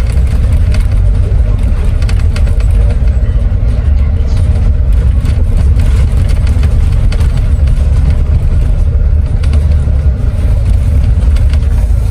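Intercity coach in motion, heard from inside the cabin: a steady, loud low rumble of engine and road noise, with faint light rattles through it.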